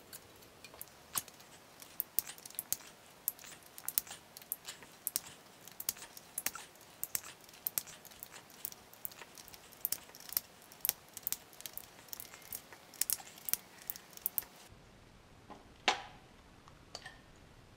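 Quick, irregular metallic clicks of a hand ratchet and loose bolts as cam carrier bolts are undone on an engine cylinder head. Near the end, after a cut, one louder metal knock.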